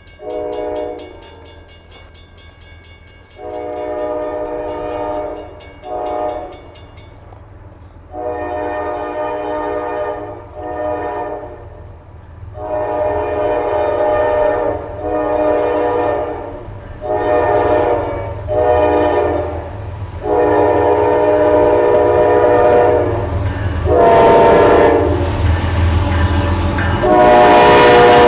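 Horn of the CSX freight's lead diesel locomotive, a GE ES44AH, sounding a repeated pattern of long and short blasts, the signal for a grade crossing, growing louder as the train approaches. Under the horn the locomotives' low rumble builds, and near the end the lead units pass close with a loud rush of wheel and rail noise.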